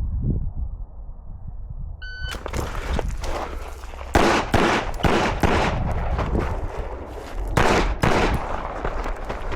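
A shot timer beeps once, briefly, about two seconds in, and gunfire starts right after: strings of rapid shots with short gaps between them, the heaviest clusters about four and about seven and a half seconds in.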